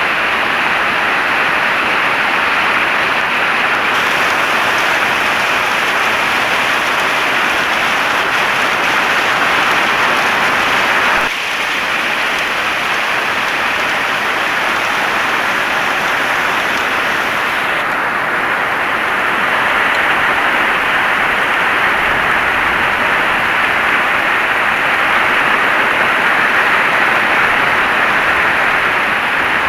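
Heavy rain falling steadily: a dense, even hiss with a brief dip in level about a third of the way in.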